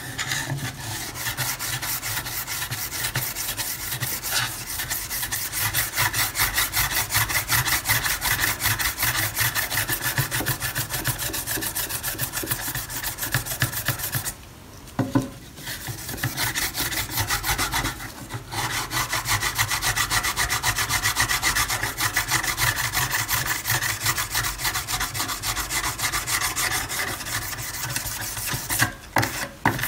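A hand-held abrasive block scrubbed rapidly back and forth along a rusty steel knife blade, scouring off heavy rust. The scrubbing runs in quick even strokes, with a short break about halfway through and another near the end.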